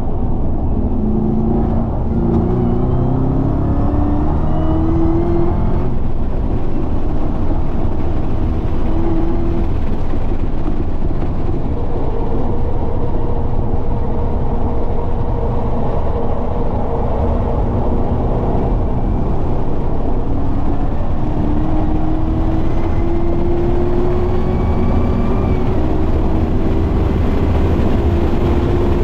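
Chevrolet Camaro ZL1 1LE's supercharged 6.2-litre V8 running hard on a race track, its pitch rising in long pulls as it accelerates, over a constant rumble of road and wind noise.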